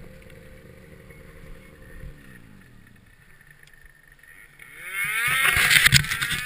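Snowmobile engine running steadily, then winding down in pitch about two seconds in; near the end it revs up hard with a rising whine.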